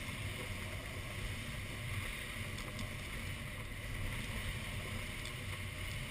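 Steady rush of airflow over the canopy and fuselage of an ASK-21 glider, heard from inside the cockpit as it glides low on its landing approach.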